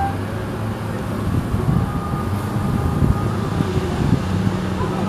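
Street traffic noise: the steady low rumble of passing cars and motorbikes on a busy road.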